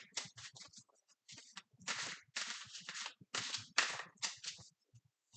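Tarot cards being shuffled and handled: an uneven run of short rustling strokes with brief gaps between them.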